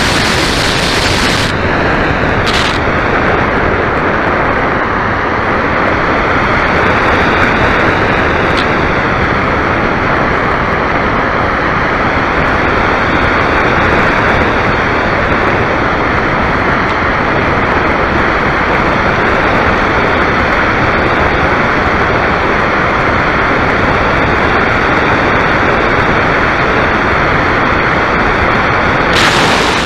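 Steady, loud rush of airflow over the onboard camera of a small model aircraft in flight, with a faint high whine that slowly rises and falls in pitch.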